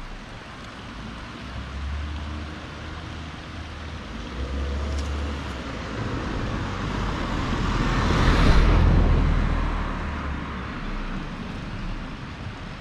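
A car driving: a steady low road and engine rumble that swells to its loudest about eight seconds in, then eases off.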